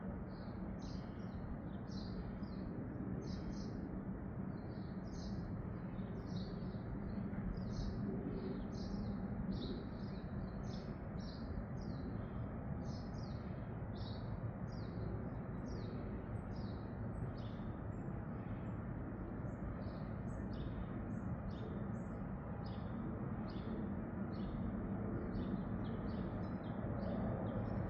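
A bird chirping over and over, about two to three short chirps a second, over a steady low rumble.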